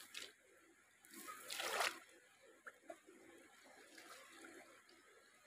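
Water pouring and dripping from a wet cast net as it is lifted out of shallow canal water, with a short rush of water about a second and a half in, then scattered faint drips.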